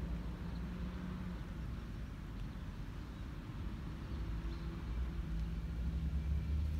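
Low, steady engine hum of a vehicle, growing louder near the end.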